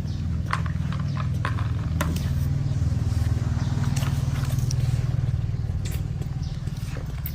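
A low, steady motor hum that grows louder through the middle and eases off near the end, with scattered clicks and knocks over it.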